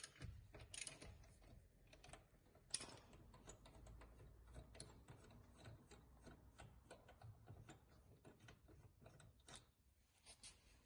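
Ratchet wrench clicking faintly in a long run of quick, irregular clicks, with one sharper click about two and a half seconds in, as a wheel lock nut is worked loose.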